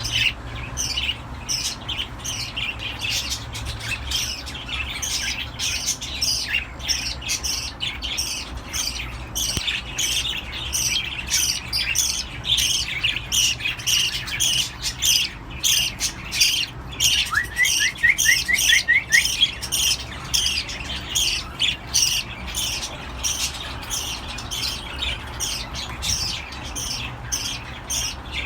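Cockatiels calling in a steady run of short squawks, about two to three a second. About two-thirds of the way through there is a brief series of quick rising whistled notes.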